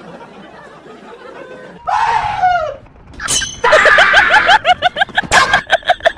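A comedy sound-effect track. A pitched cry falls in pitch about two seconds in, a short sharp crash follows, and then comes a fast run of short laughing cries, about five a second.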